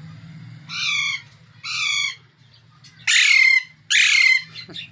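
Alexandrine parakeet squawking: two short calls that fall in pitch, then two louder, harsher squawks in the second half.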